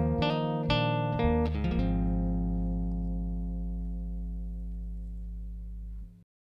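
Acoustic guitar and electric bass playing a few last plucked notes, then the song's final chord left ringing and slowly fading, cut off suddenly about six seconds in.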